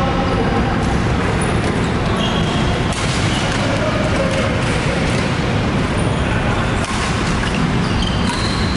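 Badminton rally in a large, echoing sports hall: racket strikes on the shuttlecock and short squeaks of court shoes on the floor over a steady, loud hall din.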